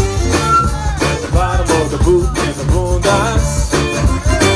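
Live band playing upbeat dance music with a steady beat.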